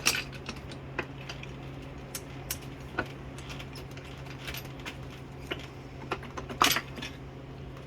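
Scattered light clicks and taps of transmission valve body parts being wiggled loose and handled by hand, with a louder clack about two-thirds of the way through. A steady low hum runs underneath.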